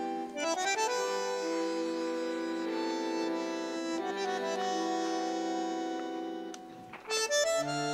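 Tango chamber music led by a bandoneon, holding chords with a quick run of notes about half a second in. Near the end the sound dips, then a short rapid flourish and a low held note come in.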